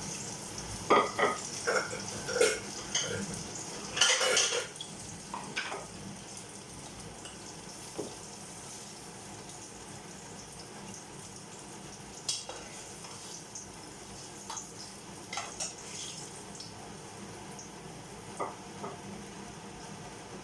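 A utensil knocking and scraping against a cooking pan as bolognese sauce is stirred over a faint steady sizzle. Most of the clatter falls in the first six seconds, then only a few scattered clinks.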